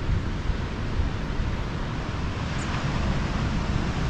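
Wind buffeting the microphone in a steady low rumble, with the hiss of surf on the rocky shore behind it.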